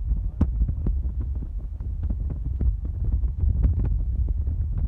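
Wind buffeting a phone's microphone: a steady low rumble with irregular short clicks and crackles throughout.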